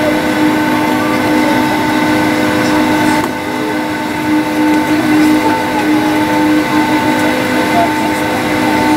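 Boeing 757's Rolls-Royce RB211 turbofan engines running steadily on the ground, heard from inside the cabin as an even rush with several steady whining tones that hold their pitch.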